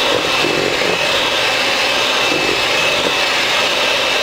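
Electric hand mixer running steadily at a lowered speed, its two beaters whirring through thick egg, oil and sugar batter in a stainless steel bowl. The motor gives a steady high whine over the whirr.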